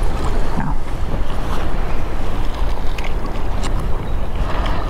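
Strong wind buffeting the microphone, a steady heavy rumble, over water lapping below the jetty.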